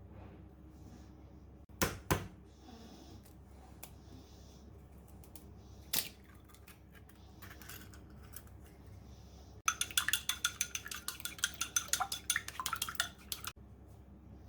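A utensil clinks against a ceramic mug or bowl: a few separate knocks, then about four seconds of rapid, even clinking of the kind made when stirring or beating food, such as whisking an egg, in a mug.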